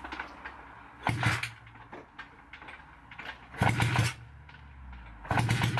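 Honda CB250-based twin engine being kicked over with the kickstart three times, each kick a short burst of cranking about two seconds apart, without the engine catching.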